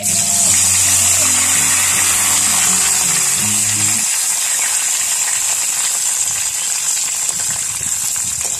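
Fresh curry leaves dropped into hot coconut oil, bursting at once into a loud, steady sizzle and spatter of frying that eases only slightly over the following seconds.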